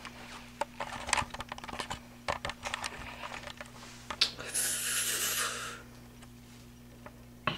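A metal spoon clicking and scraping against a cup as a liquid mixture is stirred: a string of quick, irregular taps. About four seconds in comes a hiss lasting over a second, then only a faint steady hum.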